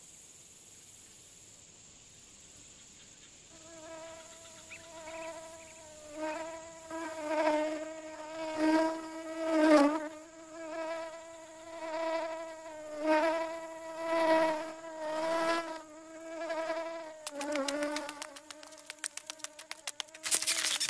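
Buzzing of a flying insect, swelling and fading about once a second as it passes back and forth, followed by a rapid run of fine clicks near the end.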